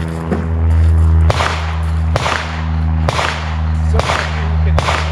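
Gunshots fired at steel targets at a steady pace, five shots about a second apart, each with a short ringing tail, over a steady low hum.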